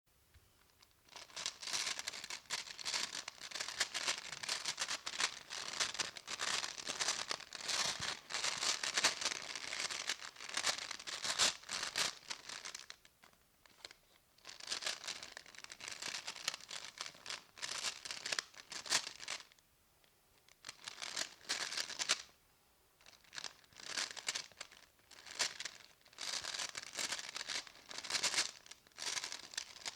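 A bag of marbles being handled, the marbles clattering against each other in a dense run of small clicks. It comes in long stretches broken by a few brief pauses.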